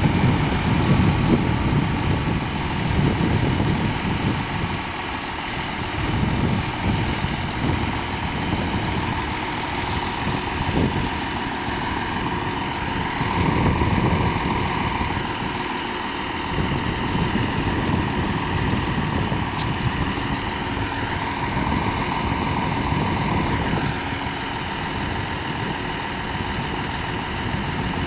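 Truck-mounted crane's diesel engine running steadily while it lowers a suspended load, with a steady hum over an uneven low rumble.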